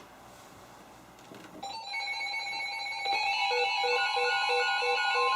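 Several weather alert radios going into alarm at once, about two seconds in: overlapping electronic alert tones, some held steady and some beeping about twice a second. They grow louder a second later, and the steady NOAA Weather Radio warning tone joins them near the four-second mark.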